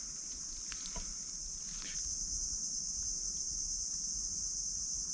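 Steady high-pitched drone of an insect chorus in tropical forest, with a couple of faint rustles in the first two seconds.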